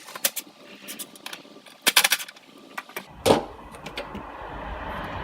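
Sharp metallic clicks and taps of a hand tool working the screws of a pop-up headlamp assembly. The clicks come in a rapid cluster about two seconds in, with a loud knock just after three seconds. A steady hiss sets in from about three seconds.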